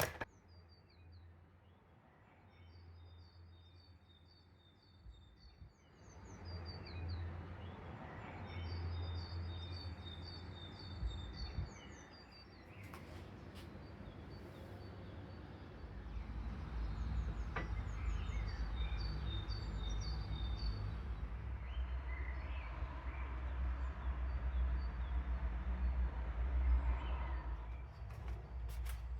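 Small songbirds singing in short phrases of quick, high, repeated chirps, over a low steady rumble that grows louder about halfway through.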